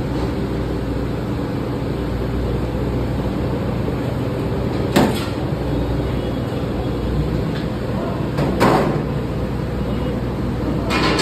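Steady background rumble, with a sharp knock about five seconds in, another a few seconds later, and a longer clatter near the end.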